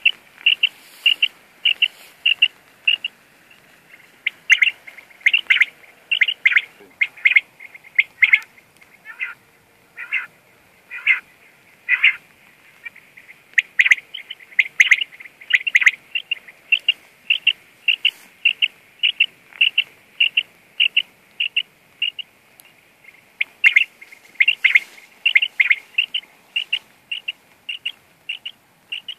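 Electronic beeper collar on a hunting dog sounding short, high-pitched beeps, about two a second, some louder and some softer as the dog moves about.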